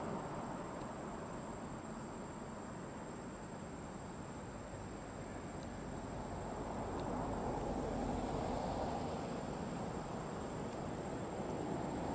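Steady, high-pitched drone of insects, one unbroken tone, over a low rushing background noise that swells slightly after the middle.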